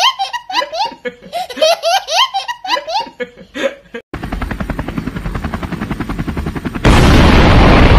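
A toddler laughing hard in repeated high-pitched belly laughs for about four seconds. The laughter cuts off abruptly into the fast, even chopping of a helicopter's rotor. Near the end a loud explosion-like blast breaks in and stays loud.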